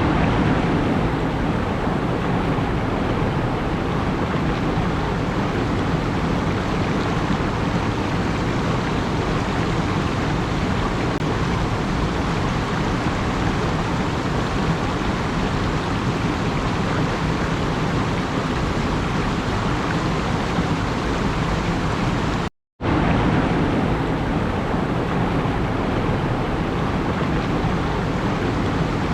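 A steady, even rushing noise with no distinct events, cut off to silence for a moment about three quarters of the way through.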